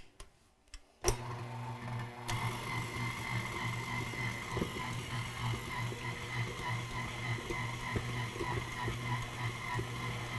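KitchenAid Artisan tilt-head stand mixer switched on about a second in, its motor running steadily as the dough hook kneads bread dough; a higher whine joins about a second after it starts. A couple of sharp clicks come just before it starts.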